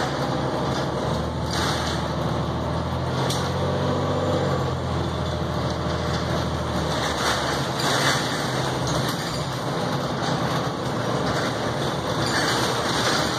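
Interior ride noise of a Neoplan AN460A articulated diesel bus: a low engine drone over steady road and cabin noise, with a few short knocks. The engine tone fades about seven seconds in.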